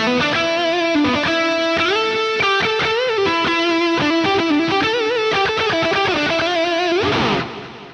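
Distorted electric guitar playing a lead line through the Tonocracy amp-modeler plugin, in a dual-amp setup with reverb and ping-pong delay. Sustained single notes with bends and vibrato, stopping about seven seconds in and dying away.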